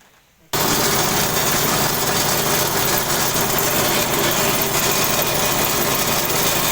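Multi-function forage chopper and hammer mill running loud and steady at full speed, cutting in suddenly about half a second in.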